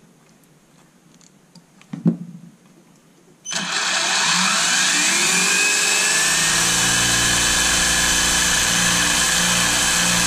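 Brushless stock RC car motor, its timing advanced to 40 degrees, spinning up the car's drivetrain and tires on the bench. It starts suddenly about three and a half seconds in with a whine that rises in pitch for a couple of seconds, then holds steady. One sharp tap comes about two seconds in.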